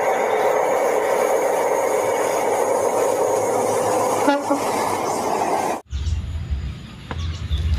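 Steady train running sound for a toy high-speed train, which cuts off suddenly about six seconds in.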